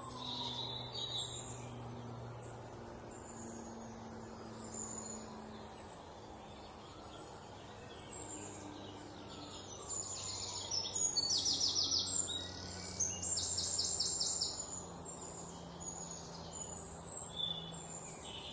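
Birds chirping and calling, with loud rapid trills in the middle, over a steady low hum.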